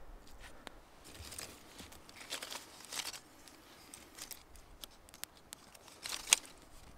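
A fire catching in a small stack of dry twigs: scattered sharp crackles and pops among several short hissing rasps, the loudest rasp about six seconds in.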